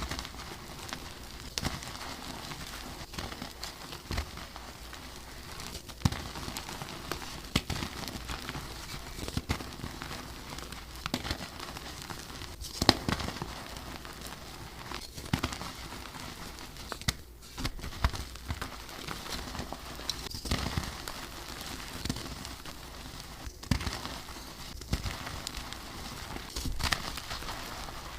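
Gym chalk blocks being crushed and crumbled by hand: a continuous crunchy crackling with many sharp snaps, the loudest about halfway through.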